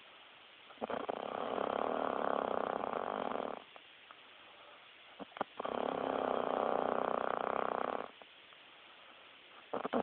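A woman snoring hardcore: two long snores of about three seconds each, with quiet pauses between them, and a third beginning right at the end.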